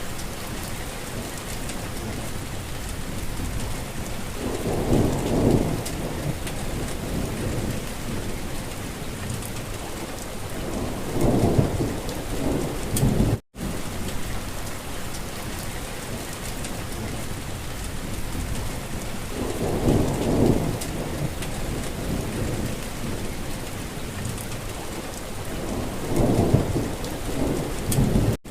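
Steady rain falling, with a low rumble swelling up four times, about every seven seconds. The sound cuts out for an instant about halfway through.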